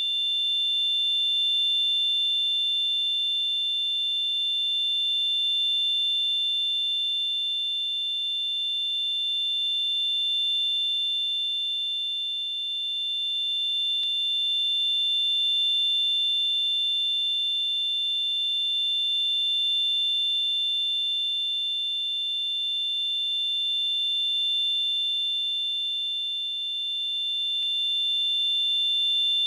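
Simulated tinnitus: a steady high-pitched ringing made of two close tones, with a faint hiss above them, swelling and easing slightly every few seconds.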